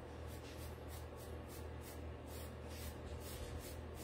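Wood-handled foam brush stroking acrylic paint onto a flat wooden piece: soft, even swishes at about three strokes a second.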